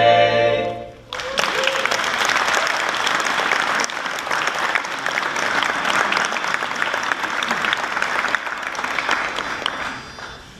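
An a cappella choir's final held chord, cut off about a second in, then audience applause that fades away near the end.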